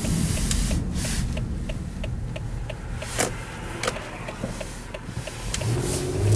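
Car cabin noise while driving, with a turn signal ticking steadily about three times a second. A few sharper knocks come through, and near the end a low engine hum grows louder.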